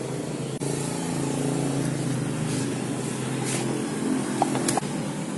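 A vehicle engine running steadily, with a few sharp clicks near the end.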